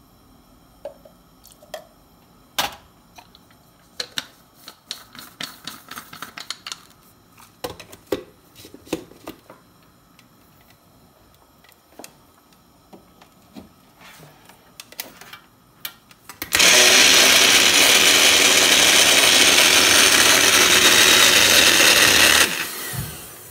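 Scattered clinks and knocks, then, about sixteen seconds in, an electric blender runs loud and steady for about six seconds, puréeing hot-water-soaked dried red peppers with a little of their soaking water, and winds down near the end.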